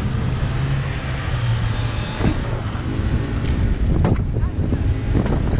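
Inflatable raft sliding fast over snow: a steady rush of wind on the microphone and the hull hissing across the snow, with a few sharp bumps about two, four and five seconds in.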